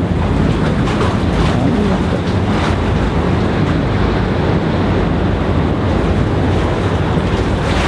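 Steady wash of sea waves against a breakwater, with a low steady hum underneath.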